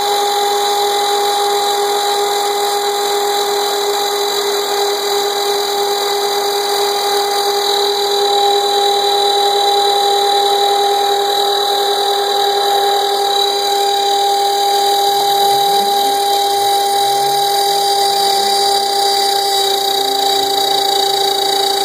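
Router spindle on a CNC router giving a steady whine as its 1/4-inch flat-end bit cuts at a slow feed, with a vacuum running alongside. Faint rising tones come in low down about two-thirds of the way through.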